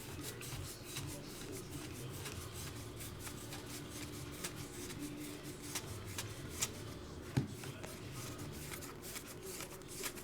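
Trading cards being handled and flipped through, with many light clicks and snaps of card on card and a few sharper snaps about two-thirds through, over a faint steady hum.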